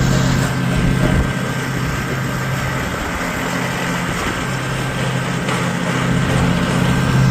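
Small gas engine of a woodchipper running steadily.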